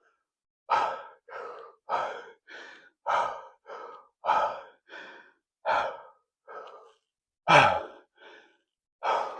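A man breathing hard to recover after a heavy set of barbell squats: quick, loud out-breaths alternating with softer in-breaths, spaced a little further apart near the end.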